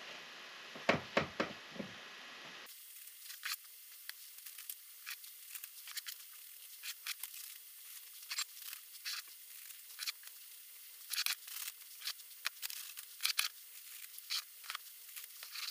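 Squeeze-handle cookie scoop scraping cookie dough out of a plastic bowl and dropping it onto a parchment-lined baking sheet: faint, irregular light scrapes, clicks and paper crinkles.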